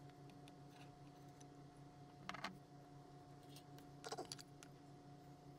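Near silence over a faint steady hum, broken by two brief clusters of small clicks and rattles, about two seconds in and about four seconds in: small parts and tools being handled on a workbench.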